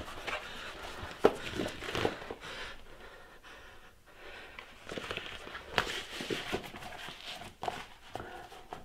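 A rubber duck-head mask rustling and rubbing in the hands as it is unrolled and pulled on over the head, with a person's quick, panting breaths.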